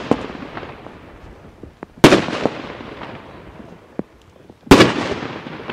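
Aerial fireworks going off in the night sky: two loud bangs about two and a half seconds apart, each followed by a long echoing decay, with a few small pops in between.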